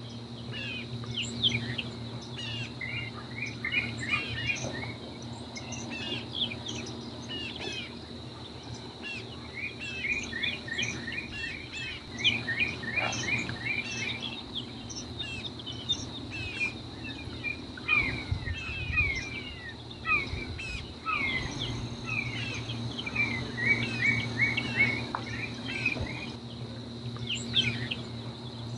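Wild birds chirping in a marsh chorus, with quick runs of short falling notes repeated every few seconds, over a steady high-pitched insect drone and a low steady hum.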